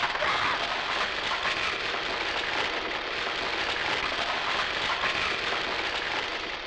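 Falling rock, gravel and dust pouring down in a cave collapse: a dense, steady rush like heavy rain.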